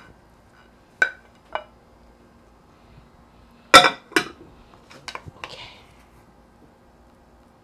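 Serving plate and wooden spatulas knocking against a glass baking dish as shrimp and scallops are tipped onto rice and stirred in. Scattered sharp clinks, the loudest two close together about four seconds in, then a few lighter knocks.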